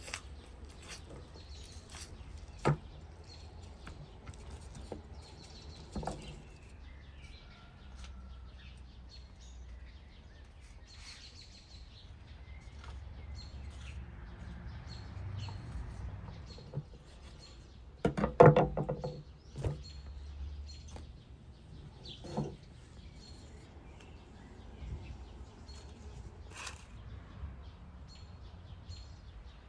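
Hands stripping fat from a veal kidney on a wooden cutting board, with a few sharp knocks on the board; the loudest is a quick rattle of knocks about eighteen seconds in. Small birds chirp in the background.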